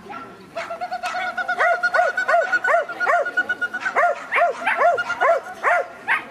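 A small dog barking over and over in short, high yaps, about three a second, with a held whine-like tone under the first few barks.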